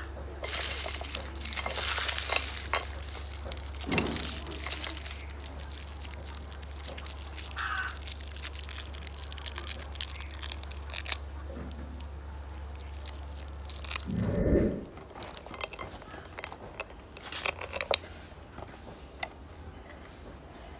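Electric meat grinder's motor humming steadily while it crunches and crackles through layered candy. The hum cuts off with a thump about fourteen seconds in, and scattered crackles continue afterwards.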